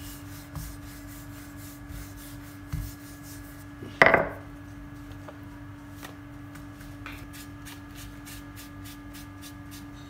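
Wooden rolling pin rolling out dough on a floured granite counter: repeated rubbing strokes, a few soft thumps and one loud knock about four seconds in, over a steady low hum.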